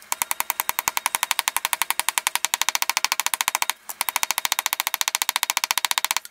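A small hammer tapping rapidly on a thin aluminium sheet panel to flatten out its bends, about ten sharp strikes a second, with one short break a little past the middle.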